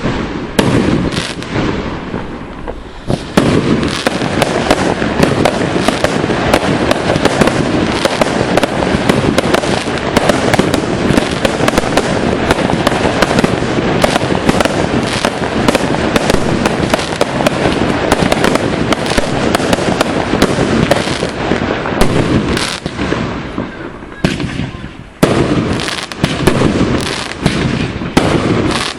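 Fireworks display: a dense, continuous barrage of shell bursts and crackling, thinning briefly about two seconds in and again near the end.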